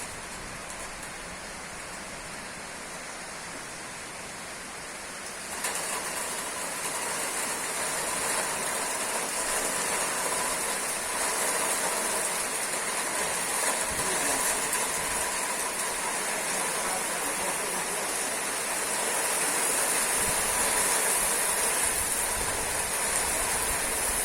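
Rain pouring down in a steady hiss, turning abruptly heavier and louder about five and a half seconds in.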